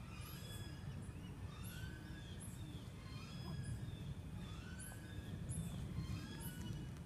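Outdoor ambience of many birds chirping: short curved notes, several at once, repeating over a steady low rumble of background noise.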